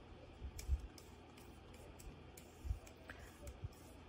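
Faint clicks and a few soft, short thumps as a paper stump is worked in slow strokes over the back of a thin pewter sheet on a semi-soft embossing surface.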